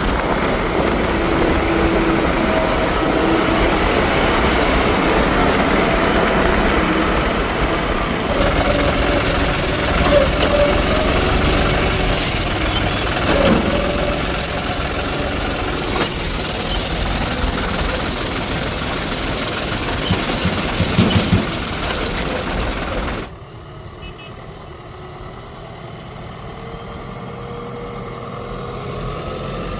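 Heavy diesel engine of a backhoe loader or truck running, with a few sharp knocks. About three-quarters of the way through the sound drops off suddenly and goes on much quieter.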